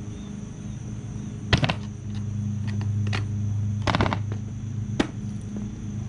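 Knocks of a BOARDUP E folding electric skateboard handled on asphalt: two loud sharp knocks, about a second and a half and about four seconds in, the second as a foot steps onto the deck, then a smaller click a second later, over a steady low hum.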